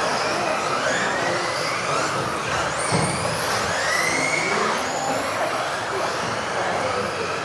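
Several electric RC off-road buggies racing together, their motors whining in overlapping pitches that rise and fall as they accelerate and brake, in an echoing hall. A single knock about three seconds in.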